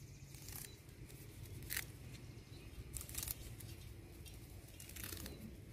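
Siamese cassia leaves being plucked by hand off their twigs: faint, short sharp snaps and leafy rustles, about four of them a second or so apart.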